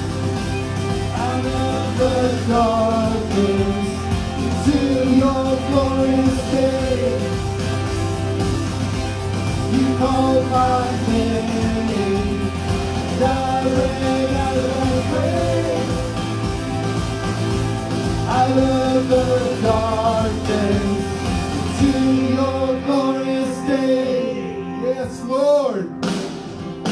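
Worship band music with a singer. About 22 seconds in, the low end drops away, leaving a thinner, quieter passage with the voice.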